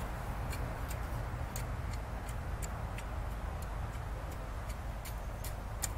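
Garden rake tamping loose soil down, with short, sharp ticks about twice a second over a steady low rumble.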